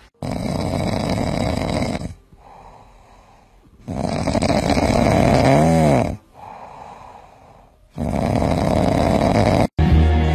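A cat snoring: three loud snores of about two seconds each, with much quieter breaths between them.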